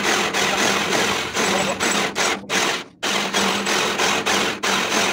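Electric drill boring through a steel truck chassis rail, its motor running with a steady hum under a pulsing cutting noise. It stops briefly twice around the middle.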